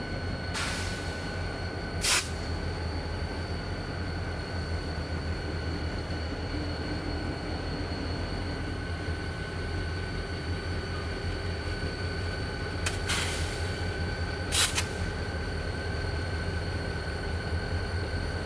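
EMD SD40T-2 diesel locomotive's 16-cylinder 645 engine working steadily under load as it lugs a loaded stone train, with a strong low hum. Four short sharp noises break in, in two pairs: early on, and again after about 13 seconds.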